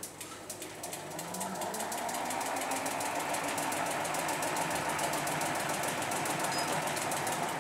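Giant SLR 0 carbon road-bike wheel spinning up on a wheel-balancing machine: a whir that builds over about two seconds and then runs steadily, with a rapid fine ticking.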